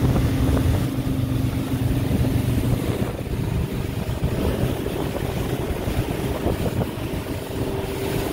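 Motorboat under way at speed on choppy river water: a steady engine drone with rushing wind and water. About three seconds in, the engine tone gives way to rougher wind and water noise.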